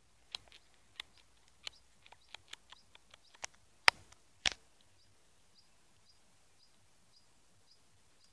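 A run of sharp, irregular clicks, the two loudest about four and four and a half seconds in. After that a small bird gives faint, high chirps about twice a second.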